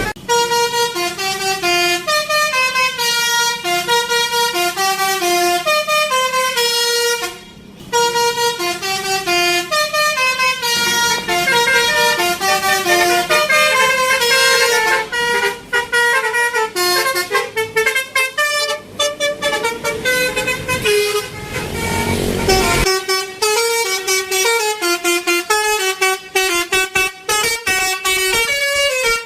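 Bus 'telolet basuri' multi-tone air horn playing a fast tune of short stepped notes, with a brief break about seven seconds in and a new phrase starting a little past the two-thirds mark. A low engine rumble runs under the horn in the first half.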